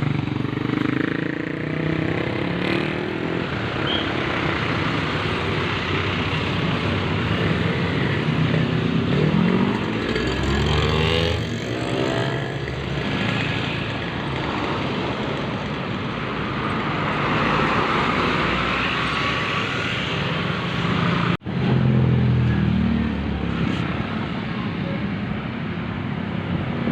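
Roadside traffic: motorcycles and other vehicles passing steadily, with one engine rising in pitch as it accelerates about ten seconds in. The sound cuts out for an instant about two-thirds of the way through.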